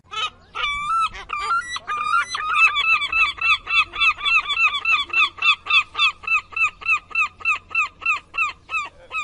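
A bird calling over and over in quick, short, high notes. A few irregular notes open the run before it settles into a steady series of about three calls a second.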